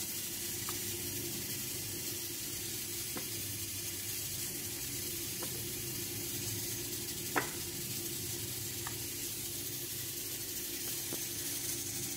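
Milk with flour dumplings (dudh roti) simmering in a stainless steel pot on a gas stove: a steady hiss with a few faint pops or ticks, the clearest about seven seconds in.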